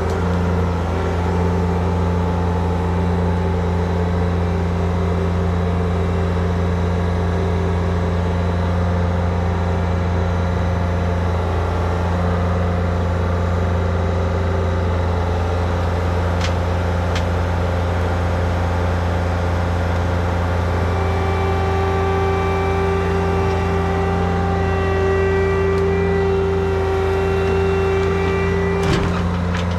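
Diesel engines of compact earthmoving machines, a mini excavator and a skid steer, running steadily under working load. A steady whine strengthens about two-thirds of the way through, and a few sharp knocks come near the middle and just before the end.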